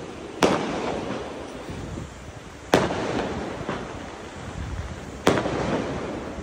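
Diwali firecrackers and fireworks going off across a hillside valley: three sharp, loud bangs about two and a half seconds apart, each trailing off in an echo, with fainter pops between them.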